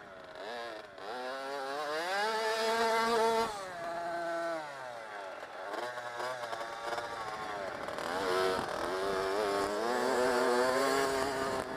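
Dirt bike engine revving hard and easing off as it is ridden. The pitch climbs steeply, drops suddenly about three and a half seconds in, then climbs again through the middle and later part.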